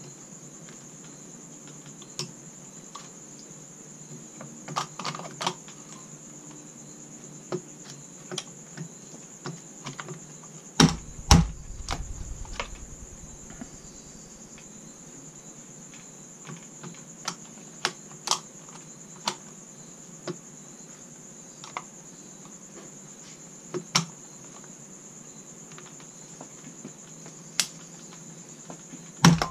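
Scattered clicks and knocks of SKS rifle parts being handled and fitted into the wooden stock, with a heavier clunk about eleven seconds in. A steady high-pitched tone runs underneath.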